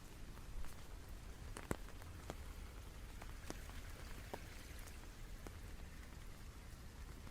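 Raindrops falling, with single drops ticking at irregular intervals over a faint steady hiss and low rumble.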